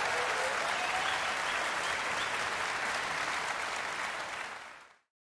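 Audience applauding, a dense steady clapping with a few faint shouts in it, fading out quickly near the end.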